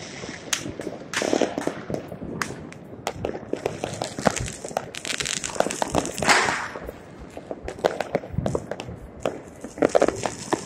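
Many fireworks going off at once: a dense, irregular run of sharp cracks and bangs with crackling, and a longer hissing crackle about five to six seconds in.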